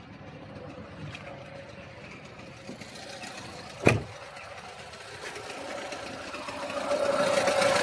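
Lada Niva Legend's four-cylinder engine idling with a ragged metallic rattle, growing louder over the last two seconds. A single sharp thump about four seconds in. The owner cannot say what causes the rattle, which goes away when the engine is revved.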